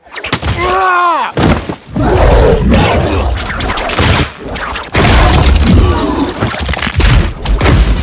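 Film fight sound effects: a short wailing cry about half a second in, then a dense run of heavy booms, thuds and crashes.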